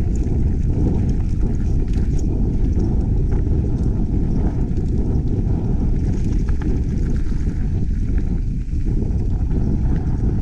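Wind buffeting a camera microphone on a mountain bike riding downhill, a steady heavy rumble with occasional faint clicks.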